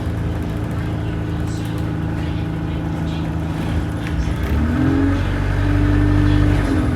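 Turbocharged vehicle engine running steadily, its pitch rising about four seconds in as it picks up revs.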